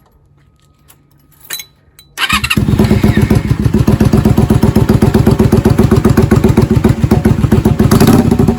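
Honda V-Twin Magna 250's V-twin engine starting about two seconds in, then idling with a rapid pulsing beat through drag-pipe mufflers without silencers, very loud.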